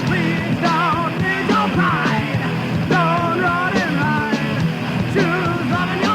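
Thrash metal with a punk edge from a 1993 cassette: distorted guitars, bass and drums with steady cymbal hits, and a high wavering melodic line over the top.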